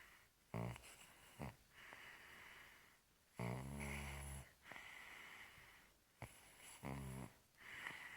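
Baby snoring in sleep: four snores, two short ones in the first second and a half, a longer one about three and a half seconds in, and another near the end, with airy breaths between.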